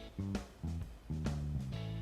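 Background music: an upbeat tune with plucked guitar-like notes over a steady bass line.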